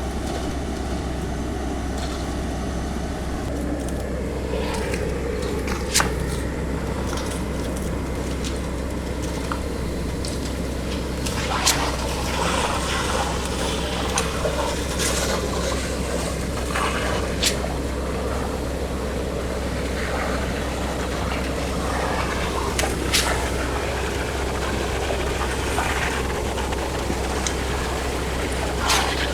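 Diesel engines of a concrete pump truck and ready-mix trucks running steadily, with a sharp knock now and then.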